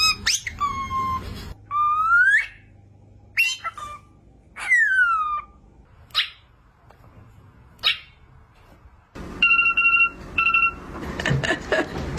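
A parrot whistling a series of separate pitch glides, some sweeping up and some sliding down. Near the end come two short steady beeps, then a burst of clicking noise.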